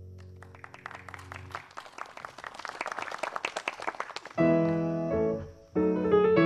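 A grand piano's held final chord dies away as a small audience breaks into applause, about four seconds of clapping. The applause stops abruptly and the piano comes in with loud chords, a short pause, then more chords.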